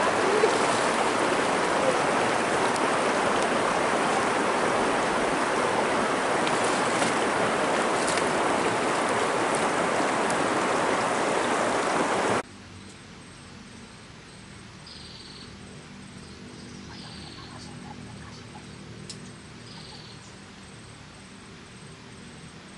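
Shallow river water rushing steadily over stones. About twelve seconds in it cuts off abruptly to a much quieter background, in which a bird gives three short, high, falling calls about two seconds apart.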